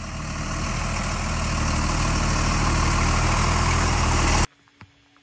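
Engine of a GMC medium-duty truck running as the truck pulls slowly past, growing louder over the first few seconds. The sound cuts off suddenly near the end.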